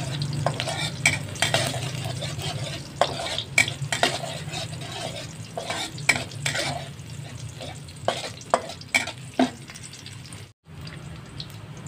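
Sliced garlic and shallots sizzling in hot oil in a wok while a metal spatula stirs them, with sharp clicks and scrapes of the spatula against the wok; they are being sautéed until fragrant. The sizzle grows quieter in the second half and breaks off briefly near the end.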